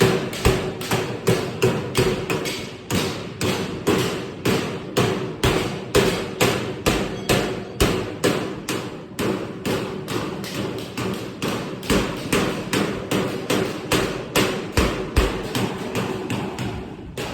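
Hammer or mallet striking sheet-metal duct in an even rhythm, about two and a half blows a second, as a seam is closed.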